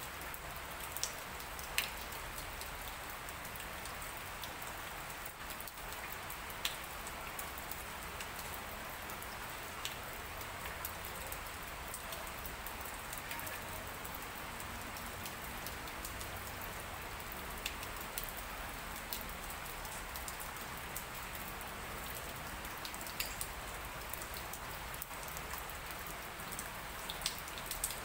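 Steady light rain: an even hiss of drizzle with scattered single drops ticking louder here and there.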